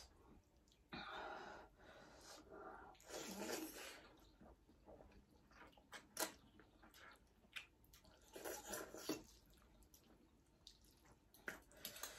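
Faint slurping and chewing of spicy ramen noodles, in short noisy bursts, with a few sharp clicks of metal forks against ceramic plates.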